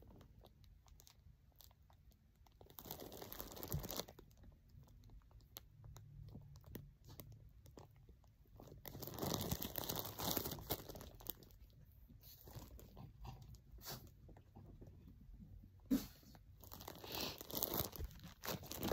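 Rustling and crinkling of packaging as skeins of yarn are handled, in three louder bursts of a second or two with quieter handling clicks between.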